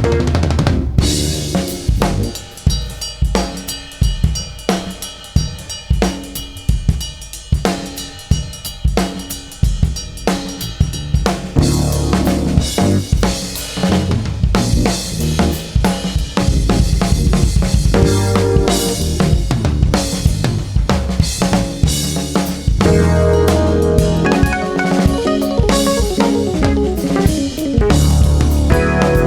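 Live jazz-fusion band: a drum kit playing alone, with kick, snare and rimshot hits, then bass guitar and other instruments joining about twelve seconds in, building to the full band near the end.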